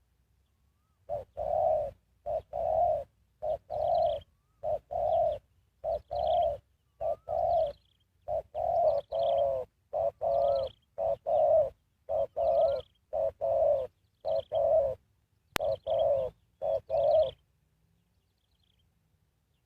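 Spotted dove cooing: a long series of coo phrases, each a short note followed by a longer one, stopping near the end. Faint high chirps sound above the cooing.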